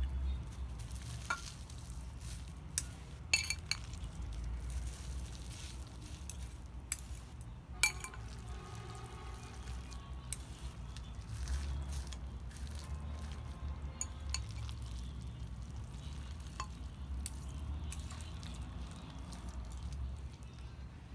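Close-miked eating of noodles: wet chewing and slurping, with sharp clicks of utensils against the dish several times.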